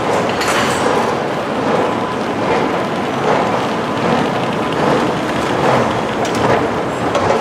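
Steady din of an underground metro station, its loudness swelling and easing slightly a little more often than once a second.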